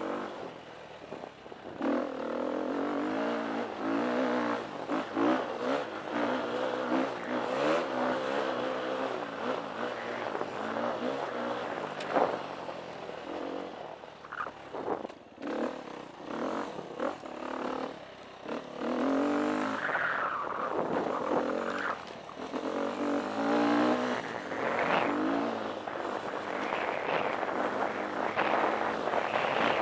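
A KTM 350 EXC enduro motorcycle's single-cylinder four-stroke engine revs up and down as it is ridden over a rough trail. A few sharp knocks come from the bumps.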